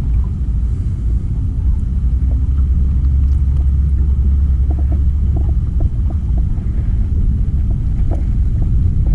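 Jon boat motor running as the boat moves along the river, a steady low rumble that is heaviest around the middle, with a few faint knocks.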